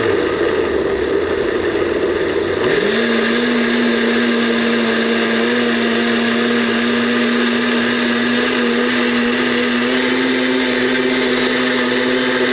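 Countertop blender motor running at full speed, puréeing cucumber slices, coconut milk and coriander into a smooth soup. About three seconds in the motor's pitch rises, then it holds steady.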